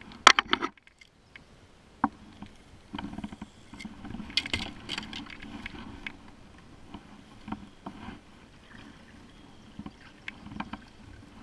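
Sharp clicks and knocks of a fishing rod and gear being handled and laid down on a plastic kayak, the loudest a quick cluster of clicks just after the start, with scattered knocks after it. Near the end a kayak paddle dips and splashes in the water.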